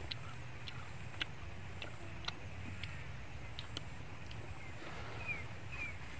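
Faint, irregular small clicks from steamed snail shells being handled and picked at with a toothpick while the meat is eaten, over a steady low outdoor rumble. Two short bird chirps come near the end.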